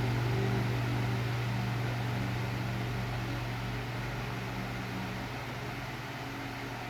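Arge 60 cm oscillating wall fan (200 W) running: a steady low motor hum over the rush of air, which grows gradually quieter.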